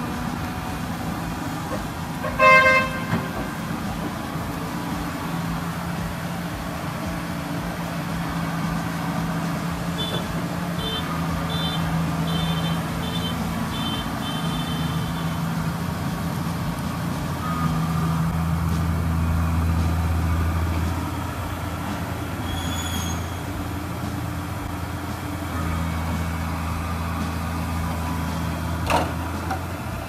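Crawler excavator's diesel engine running steadily while it digs, growing louder and deeper twice as it works harder. A horn toots once, briefly, about two and a half seconds in.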